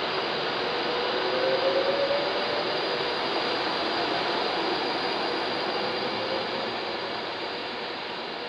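Class 390 Pendolino electric train running through the station: a steady rush of wheel and rail noise with a faint hum, slowly fading toward the end.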